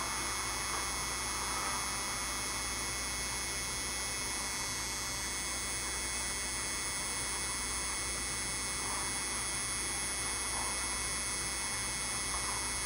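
Steady electrical hum and buzz, with many faint unchanging tones over a light hiss.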